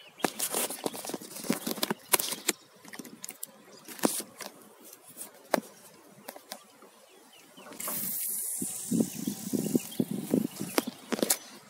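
Irregular clicks and knocks from a fishing rod and reel being handled. About eight seconds in comes a brief hiss that fades away.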